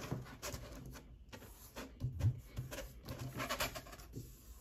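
A sheet of printed heat transfer paper rubbing and rustling on a cutting mat as hands slide it into place and press it flat, with scattered light taps and scrapes.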